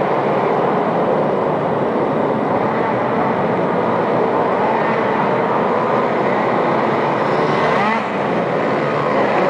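Several small pit bike and scooter engines revving together as they race around the course inside a large hall. They make a steady, dense mix of wavering engine notes, and one engine rises in pitch as a bike passes close near the end.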